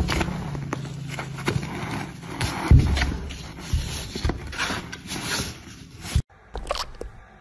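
A cat's paw scrabbling at a dangled cord from under a wooden board: scraping and rubbing on cardboard with several thumps against the wood, the loudest about three seconds in. The sound cuts off suddenly about six seconds in.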